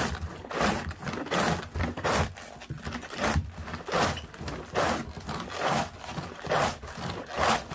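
Cabbage being shredded on an antique wooden slaw cutter: a cabbage quarter pushed back and forth across the blades, each stroke a rasping shred, in a steady rhythm of a little more than one stroke a second.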